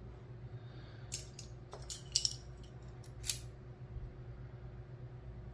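Small metal lock parts being handled as a lock is taken apart: a few light, sharp metallic clicks and taps, grouped between about one and three and a half seconds in.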